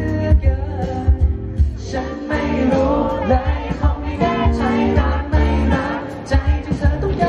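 A male singer singing a Thai pop ballad live into a handheld microphone, his held notes wavering with vibrato, over a backing track with drums and bass.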